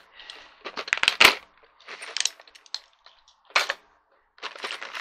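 Clear plastic hardware pack of chair-assembly bolts being handled and opened: crinkling plastic with irregular small clicks, loudest about a second in and again past three and a half seconds.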